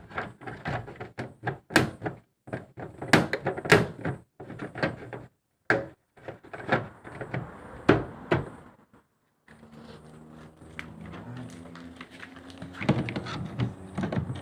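A string of sharp knocks and thunks from hands working on a washing machine, broken by short dead gaps. About two-thirds of the way in, a steady hum with several tones takes over.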